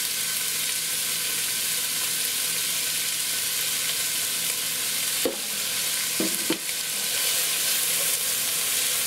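Diced onion, celery and carrots sizzling steadily as they sauté in hot ghee in a stock pot, at the start of cooking before the onions turn translucent. Two short knocks come about five and six and a half seconds in.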